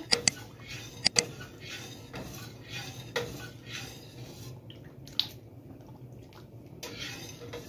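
A metal spoon stirring milky strawberry atole in a large stainless steel pot, the liquid swishing, with a few sharp clinks of the spoon against the pot: two pairs in the first second or so, then single ones later.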